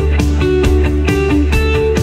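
Background music: guitar-led instrumental with a steady beat.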